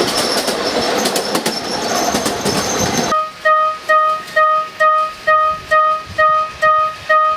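Noisy clatter of a miniature ride-on train running. About three seconds in, a level-crossing (fumikiri) warning bell cuts in: an electronic chime that strikes about twice a second, each stroke fading quickly, which signals that the crossing is closing for the train.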